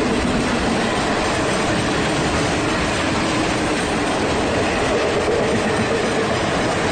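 Container freight train's wagons rolling past, a steady noise of steel wheels running on the rails.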